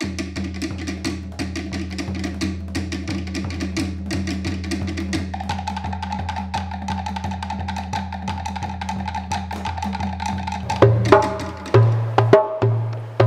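Background music: a fast, steady percussive beat over a held low drone. A higher held tone joins about five seconds in, and heavier, louder hits start near eleven seconds.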